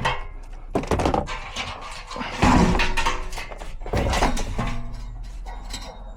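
Irregular knocks, thuds and clatter of heavy equipment and parts being shifted and handled, with the loudest thumps about two and a half and four seconds in.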